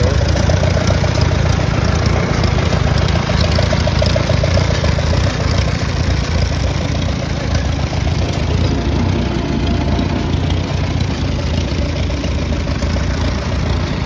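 Farmall B tractor's four-cylinder engine idling steadily.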